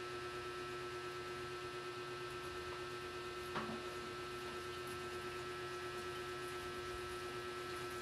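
Steady hum with a fainter high tone above it, and a single short click about three and a half seconds in.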